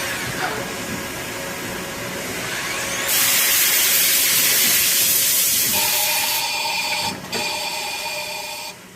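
Tsugami SS32 Swiss-type CNC lathe running with a steady mechanical hum. A loud hiss comes in about three seconds in and lasts about three seconds. A steady two-note whine follows and cuts off suddenly near the end.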